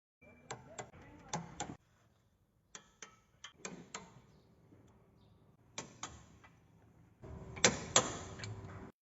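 A series of sharp clicks and knocks in short stretches that start and stop abruptly, some over a faint steady hum; the two loudest knocks come close together near the end.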